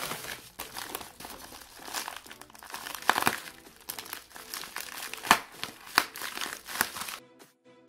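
Plastic bubble mailer crinkling and rustling as hands work it open with a dull knife, with several sharp crackles. It stops about seven seconds in.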